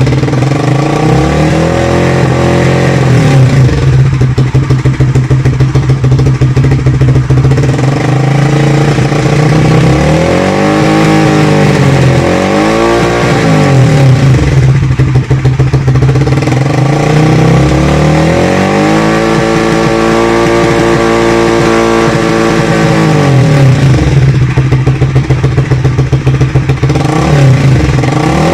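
Motorcycle engine through an aftermarket exhaust, idling and being revved in place: a slight rev near the start, two quick blips about a third of the way in, then a longer rev held for a few seconds past the middle before dropping back to idle.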